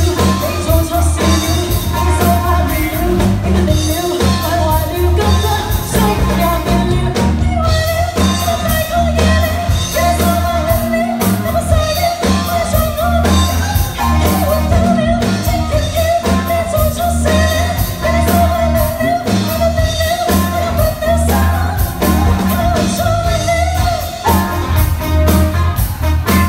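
A live band playing a song with a woman singing: drum kit, electric guitar, keyboards and bass with a steady, repeating beat.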